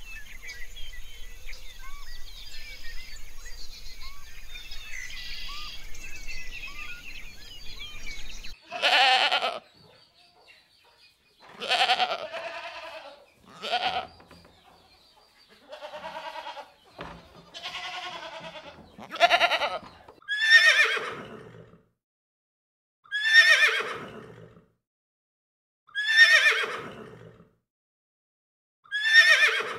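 Faint bird chirping over a low hum, then from about nine seconds in goats bleating: about ten loud calls, each falling in pitch, the last several evenly spaced about three seconds apart.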